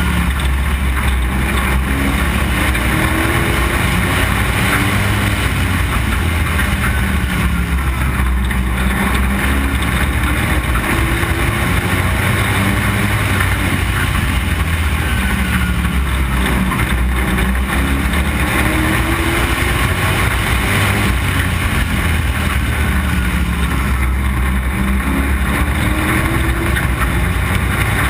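Street stock race car's engine recorded from inside the car at racing speed: a loud, continuous engine note whose pitch rises again and again every few seconds as the car accelerates on the oval.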